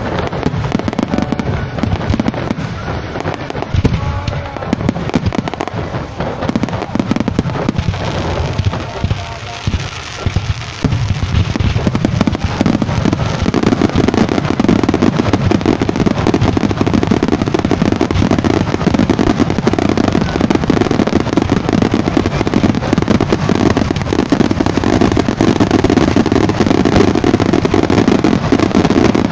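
Aerial fireworks barrage fired about 100 m away: a dense, continuous string of bangs and crackling shell bursts that grows louder and denser about halfway through.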